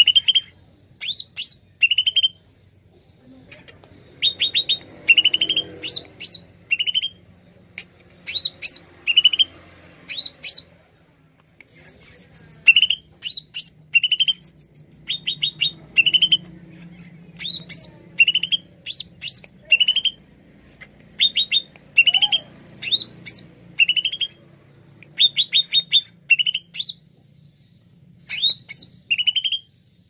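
Greater green leafbird (cucak ijo) singing hard: a lively string of short, sharp phrases of rapid chirps, trills and quick whistles, with brief pauses between bursts.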